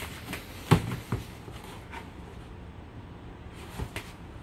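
Hard plastic carrying cases being handled, with sharp clicks and knocks: one loud knock under a second in, another just after, and a few clicks near the end as the latches of a molded plastic tool case are worked open.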